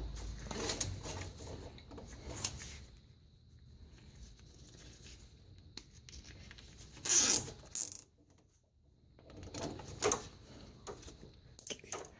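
Intermittent rustling, scraping and light clinks of hand work on parts and tools, with a louder scrape about seven seconds in and a moment of near quiet just after.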